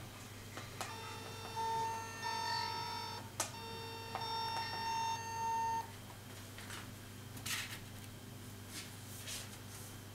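Yongnuo YN560-II speedlights firing at full power with a sharp click, then a steady electronic whine for about two and a half seconds as the flash capacitors recharge. This happens twice, the second click being the louder. Faint handling clicks follow.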